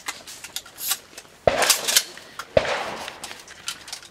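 Two shotgun shots about a second apart, fired at clay targets, each trailing off in a short echo.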